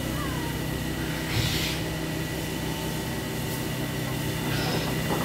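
DR class 52.80 steam locomotive 52 8131-6 turning on a roundhouse turntable. There is a steady mechanical hum, with a short hiss of steam and a low thump about a second and a half in and another brief hiss near the end.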